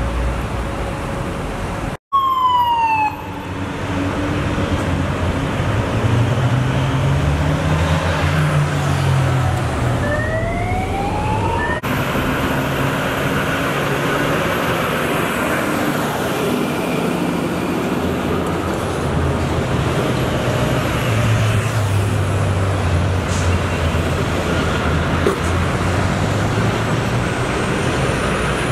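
Heavy diesel trucks, a Mack prime mover among them, rumbling past in slow traffic, the engine note rising and falling as they go by. Short police siren whoops cut through: a falling one about two seconds in and a rising one around ten seconds in.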